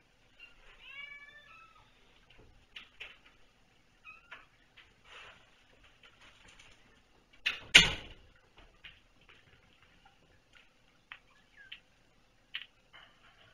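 A kitten meows once about a second in, amid scattered small taps and clicks. About two-thirds of the way through comes one sudden loud bang, a glass-paned door shutting.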